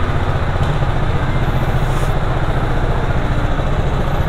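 TVS Apache RR310's single-cylinder engine idling steadily, with a short hiss about a second and a half in.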